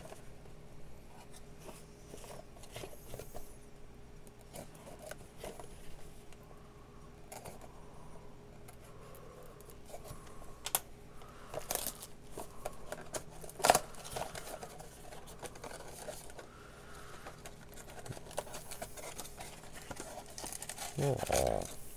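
Plastic shrink-wrap being torn off a cardboard trading-card box, crinkling with scattered small snaps and one sharper snap about fourteen seconds in. Near the end the cardboard box is pulled open, with louder rustling and scraping.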